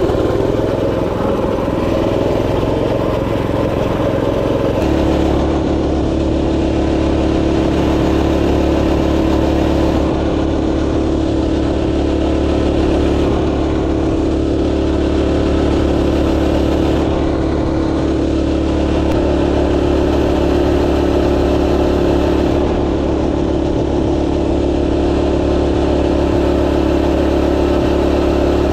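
Minibike engine running under throttle while riding. It speeds up unevenly for the first few seconds, then holds a steady hum at cruising speed.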